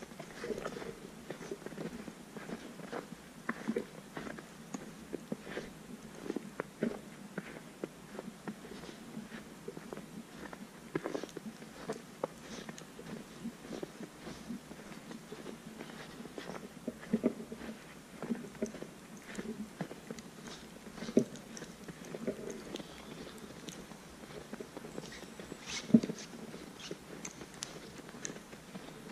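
Footsteps crunching in snow at a walking pace, a string of short, uneven crunches with two louder ones in the second half.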